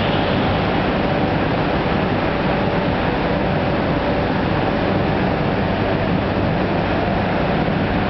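Go-kart engines running around an indoor track, blending into a steady, unbroken din.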